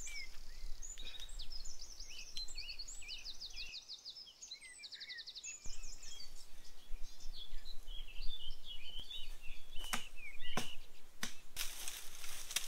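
Woodland birds singing: many short chirps and a few fast trills. Near the end a few sharp clicks, then dry leaf litter rustling under footsteps.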